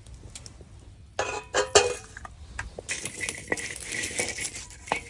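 Hard objects clinking and clattering as they are handled, with a few sharp knocks between one and two seconds in, then a denser run of clatter and rustling.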